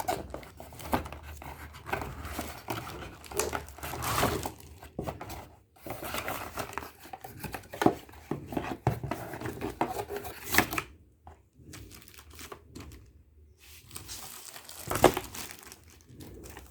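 Packaging of a boxed keyboard being unwrapped by hand: dense crinkling and rustling of wrapping with sharp crackles, easing off about two-thirds of the way through to scattered rustles and one loud crackle near the end.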